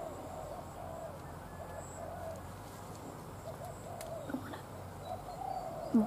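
Spotted doves cooing: soft, repeated coo phrases, a wild dove answering each call of a decoy dove. A light knock near the end.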